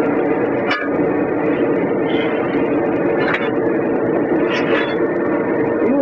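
A steady machine drone with a few sharp metallic clicks and scrapes from a steel tire iron working against a mower's steel wheel rim as the tire is pried off by hand.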